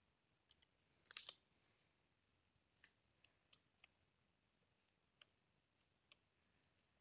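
Faint, sparse computer keyboard keystrokes: a quick cluster of clicks about a second in, then single key clicks every half second or so, over a low hiss.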